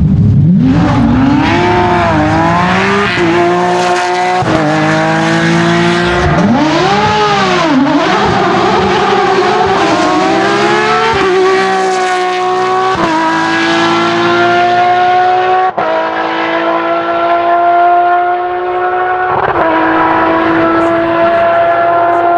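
Porsche 997 GT3 rally cars' 3.6-litre flat-six engines revving hard, the pitch arching up and down through braking and turning, then climbing in steps with quick sequential-gearbox upshifts as a car accelerates away.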